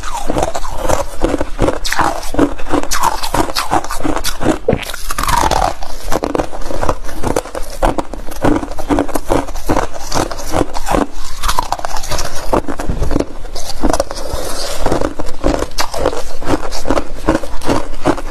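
Freezer frost being bitten and chewed: a dense, steady run of crisp crunches and crackles.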